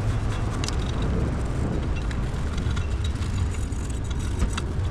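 Wire brush scrubbing rust off a brake hub, giving a steady scratchy hiss with a few light clicks, over a steady low rumble.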